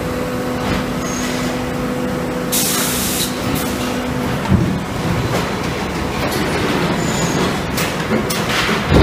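Concrete block plant's paver-handling gripper robot and conveyor running: a steady motor hum that stops about four seconds in, a short hiss about two and a half seconds in, and a knock just after the hum stops, over ongoing mechanical clatter.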